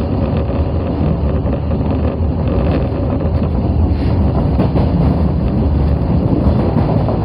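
Osaka Metro Tanimachi Line 22 series subway train running at a steady pace, a continuous low rumble of wheels on rail with a few faint clicks, heard from inside the leading car.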